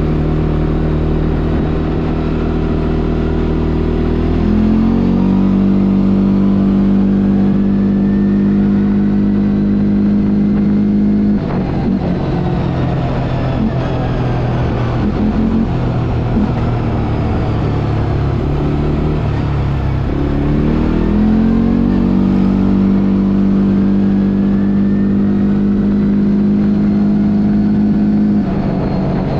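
CFMOTO 450 ATV's single-cylinder engine running under way. It rises to a higher steady pitch about five seconds in and holds it, drops back near the middle, then rises and holds again before dropping near the end.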